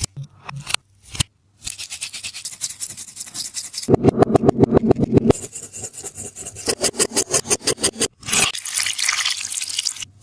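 Taba squishy being rubbed and squeezed by hand, giving rapid scratchy crackling at about ten crackles a second. The crackling is fuller and heavier for a stretch about four seconds in and breaks off briefly near eight seconds.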